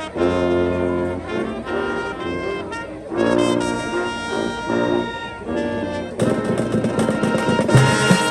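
High school marching band playing, led by brass: trombones and trumpets on sustained and moving chords, with drums coming in strongly about six seconds in.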